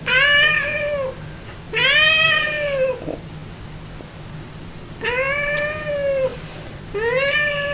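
Domestic cat meowing: four long, drawn-out meows, each rising and then falling in pitch, with a longer pause after the second.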